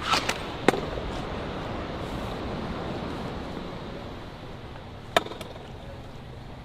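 A few sharp cracks over steady background noise: a quick cluster right at the start, a single crisp crack under a second in, and another about five seconds in.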